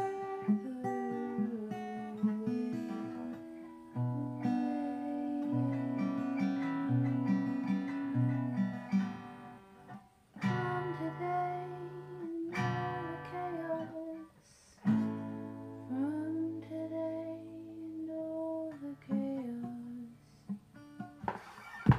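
Acoustic guitar being strummed and picked slowly, chords and single notes left to ring, with two short pauses. A sharp knock at the very end.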